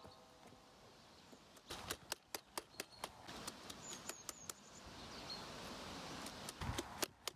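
A faint background with a run of short, sharp clicks or taps, a few a second and irregular, starting about two seconds in, and a low thump near the end.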